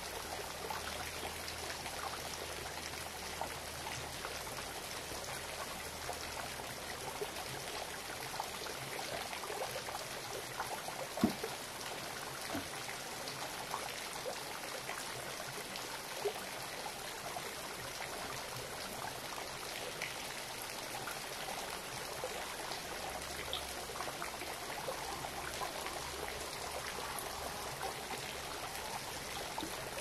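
Steady rush of running water, with a few faint clicks and one sharper knock about eleven seconds in.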